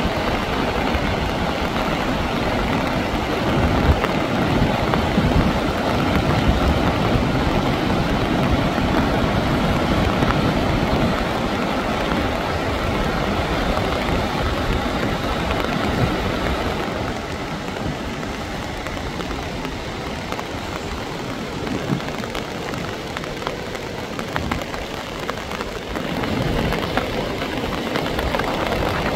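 Muddy floodwater rushing down a rocky gully: a loud, continuous torrent, a little quieter for a while after the middle.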